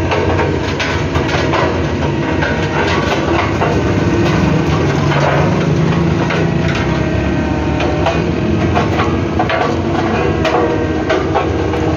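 A road roller running, its engine a steady low drone under frequent irregular knocks and clanks.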